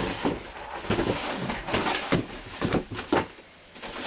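Handling noise from a box and its contents being unpacked: a run of irregular knocks and clicks with rustling, quieter near the end.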